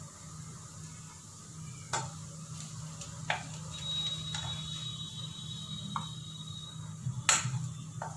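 Wooden spatula knocking and scraping as noodles are served from a cooking pan onto a plate: several separate clinks and knocks, the loudest near the end, over a steady low hum.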